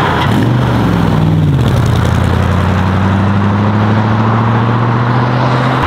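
A car engine running at low revs; its note drops about a second and a half in, then rises slowly as the car pulls away.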